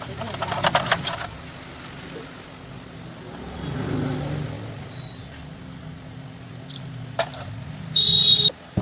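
Rapid scraping as the cut wires are cleaned at the start, then a low rumble that swells and fades midway, a single click, and a short loud harsh burst with a high whine near the end.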